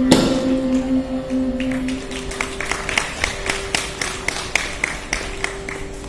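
Close of a Carnatic piece: a final sharp stroke and a held note that fades out by about two seconds. The tanpura drone then carries on under a regular run of light, sharp taps, about three a second.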